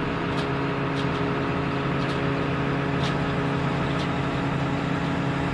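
An engine running steadily at constant speed, with faint sharp ticks about once a second.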